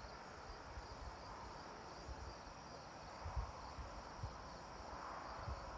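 Faint, steady chorus of crickets, with a few soft low thumps in the second half.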